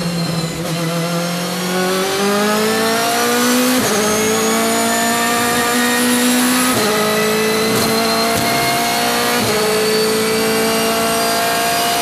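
BMW M3 DTM's 4-litre V8 race engine at full throttle, heard from the cockpit, pulling hard out of a slow corner and climbing through the gears. The pitch rises steadily and drops sharply at three upshifts, about three seconds apart.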